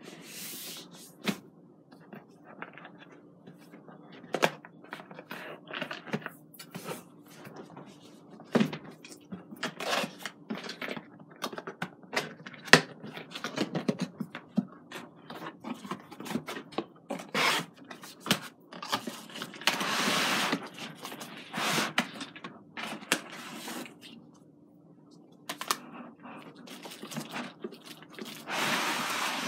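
A cardboard box being opened by hand: scattered scrapes, taps and clicks of cardboard and packing tape, with two longer stretches of rustling and tearing, one in the middle and one near the end.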